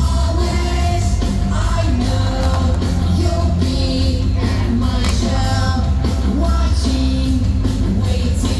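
Rock song with singing playing loudly over a heavy, steady bass.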